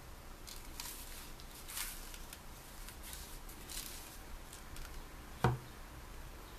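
Cotton-gloved hands handling a leather-sheathed puukko knife, giving soft scattered rustles, then a single thump a little over five seconds in as the knife is set down on a cloth-covered surface.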